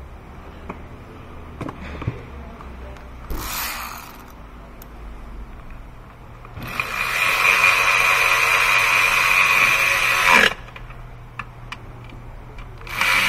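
Cordless power ratchet spinning to tighten a hose clamp on the intake tube at the throttle body. It gives a short burst about three seconds in, then a steady whir of about four seconds that winds down and stops, and it starts up again at the very end.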